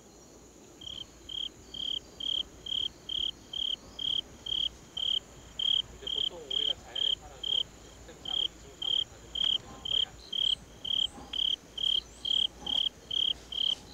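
Cricket chirping in an even rhythm, about two short high chirps a second, with a faint, higher steady tone behind it that stops about ten seconds in.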